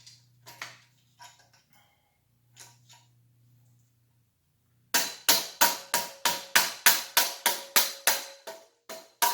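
Steady, rapid hammer blows on metal, about three a second, each strike ringing briefly, starting about five seconds in. Before that, faint clicks of parts being handled.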